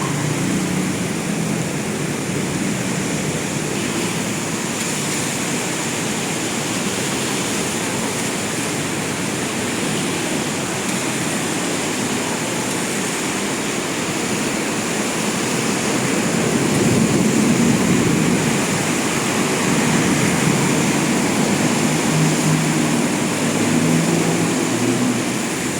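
Heavy rain pouring down in a steady hiss, growing louder for a stretch in the second half.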